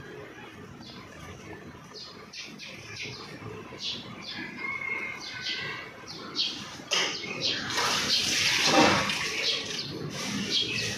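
Small birds chirping in short, repeated high notes that grow busier, with a loud burst of rushing noise about eight seconds in.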